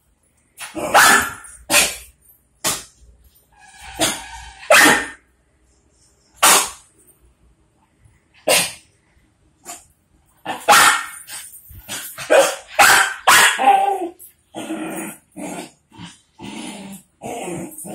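Two dogs, a puppy and a larger dog, playing and barking in short sharp barks, spaced out at first and coming thick and fast from about ten seconds in.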